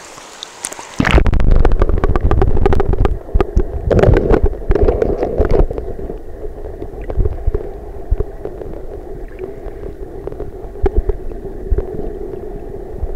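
Muffled underwater rush and gurgle of a flowing trout stream, recorded by a camera dunked beneath the surface, with knocks and clicks from the water and handling against the camera. It starts suddenly about a second in, is loudest and busiest for the next few seconds, then settles into a steadier, softer rush.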